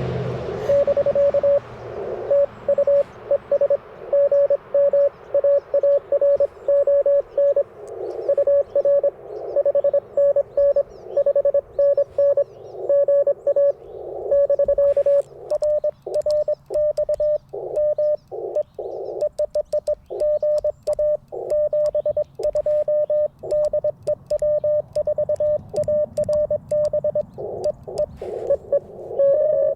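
Morse code (CW) on an Icom IC-705 ham radio: a steady tone of about 600 Hz keyed on and off in dots and dashes over the receiver's hiss. Light clicks come through during the second half.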